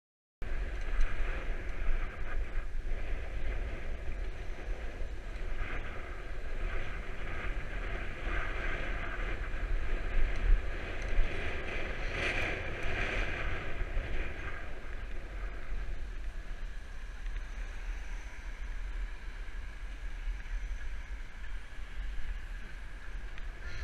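Wind buffeting the microphone of a bicycle handlebar camera while riding, a steady low rumble with road noise that swells briefly about halfway through.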